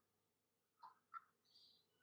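Near silence: quiet room tone with a few faint short chirps about a second in.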